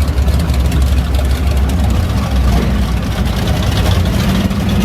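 A vehicle engine idling with a steady, deep rumble.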